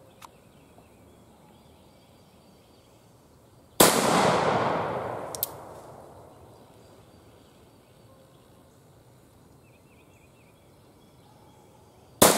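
Two shots from an 1858 Remington cap-and-ball revolver, about four seconds in and again near the end, each followed by an echo off the surrounding woods that dies away over about two seconds. A short sharp click comes between them.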